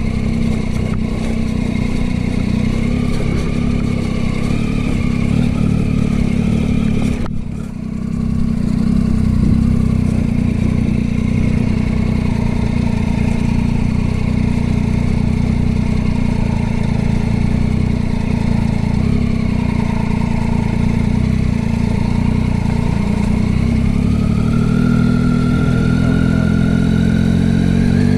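Vehicle engine running steadily while driving, with a brief dip in level about seven seconds in. Its pitch rises near the end as it speeds up.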